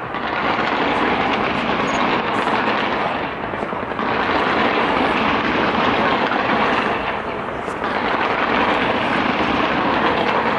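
Large fireworks display crackling and bursting in a dense, continuous wash, mixed with crowd voices, swelling and easing every few seconds.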